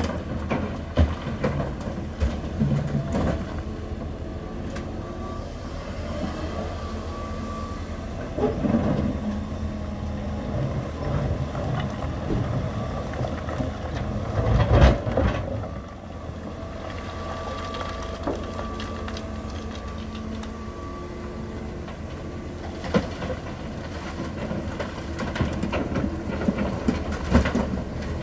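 John Deere 350G excavator's diesel engine running steadily while its bucket digs into a rock pile and loads a dump truck. Rocks clatter and knock, loudest about halfway through, with more clattering near the end.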